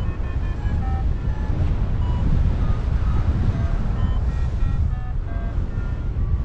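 Wind buffeting the microphone of a camera carried by a paraglider pilot in flight: a steady, loud low rumble.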